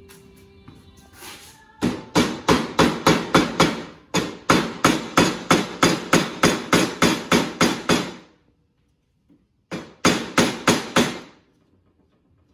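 Claw hammer tapping a glued wooden dowel into a window sash's mortise-and-tenon corner joint, driving glue into the tenon. A fast, even run of sharp strikes at about five a second lasts some six seconds, and after a pause a shorter run follows near the end.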